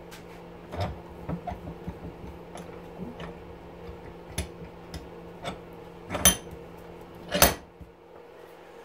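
Light metal clicks and knocks from handling a small electric motor's steel housing at a bench vise, with two louder clanks about six and seven and a half seconds in, over a steady low hum.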